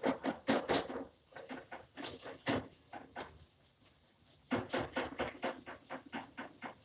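A cooking utensil scraping and tapping against a skillet in quick strokes as ground beef is stirred and broken up, with a pause of about a second and a half near the middle.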